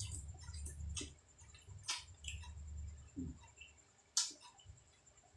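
Close-up eating sounds: chewing with wet mouth clicks and smacks, and a sharper click about four seconds in.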